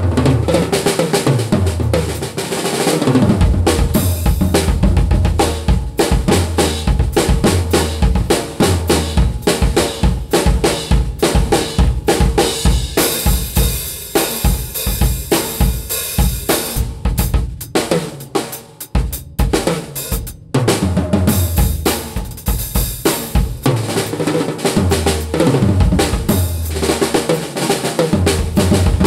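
Mapex VX acoustic drum kit with its factory drumheads, tuned low, played in grooves and fills: kick drum, snare and toms, with cymbals. A cymbal rings out for a few seconds from about 13 seconds in, and the playing briefly drops out around 19 seconds in.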